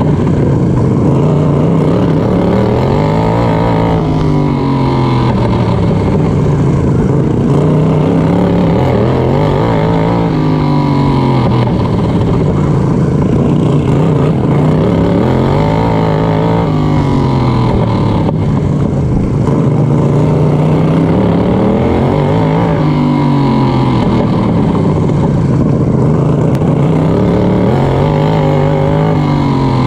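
Racing lawn mower's engine heard from on board, running hard at race speed. Its pitch rises and falls over and over as the driver accelerates and backs off around the dirt track.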